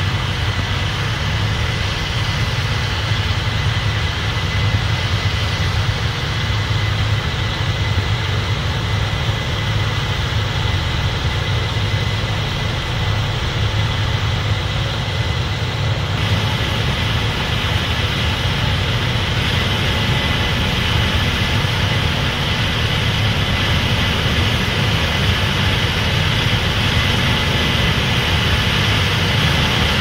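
Heavy diesel engine running steadily as a tractor drives a grain cart's unloading auger, emptying shelled corn into a semi truck trailer. There is a slight shift in tone about halfway through.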